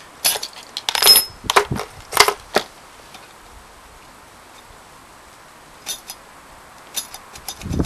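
Sharp clicks and clatter of hard plastic and metal as an old tube video camera is pulled apart by hand and tools are set down on a wooden table. There is a quick run of knocks in the first couple of seconds, then a few lighter clicks near the end.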